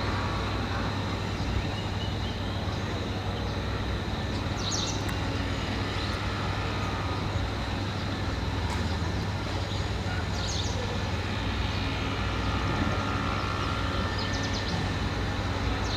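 Heavy construction machinery running steadily, a constant low engine drone, with a few brief high-pitched sounds over it.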